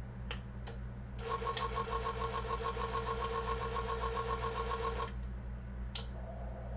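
Xiegu XPA125B antenna tuner running a manual tune cycle: for about four seconds, starting a second in, it gives a rapid, even chatter of about eight clicks a second over a steady tone while the transceiver keys down. A few single clicks come before and after it.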